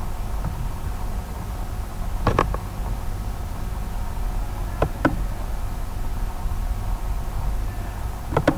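A computer mouse clicking three times, each click a quick double tap, about two, five and eight seconds in, over a steady low hum.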